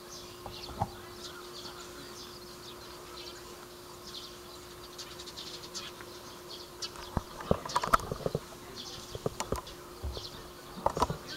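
Outdoor background: a steady hum with short high chirps scattered throughout, and several sharp clicks and knocks bunched about two-thirds of the way through and again near the end.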